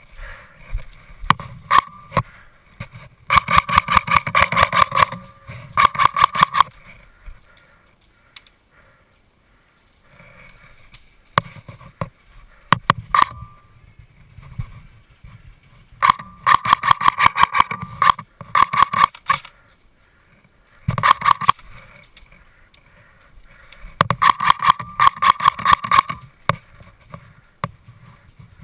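Airsoft rifle firing in several bursts of rapid shots, each a quick string of sharp clicks with a ringing mechanical tone. A few single shots fall between the bursts, with quieter stretches in between.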